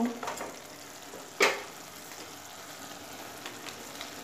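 Potato and yardlong-bean curry with rice cooking in a kadai with a steady sizzle, with one sharp tap, a spoon against the pan, about a second and a half in.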